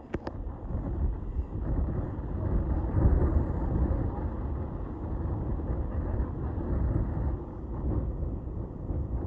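Wind buffeting the microphone: an uneven, gusting low rumble that strengthens about half a second in, with two faint clicks at the very start.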